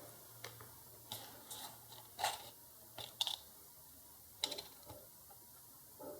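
Light, irregular clicks and taps of small tools and a wire being handled on a workbench while preparing to solder a wire onto a circuit board, about eight in all.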